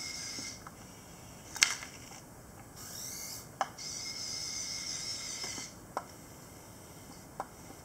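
Kyosho radio-controlled Komatsu excavator model's small electric motors and gearboxes whirring in high-pitched spells as the upper body swings round and the boom moves, with four sharp clicks between the spells, the loudest about a second and a half in.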